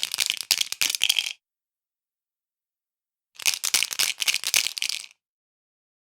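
Dice rattling against one another as they are shaken, in two bursts of rapid clicking about two seconds apart, each stopping abruptly.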